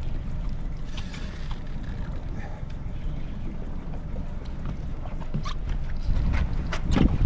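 Boat underway on the water: a steady low rumble of wind and water, with sharp knocks growing more frequent near the end.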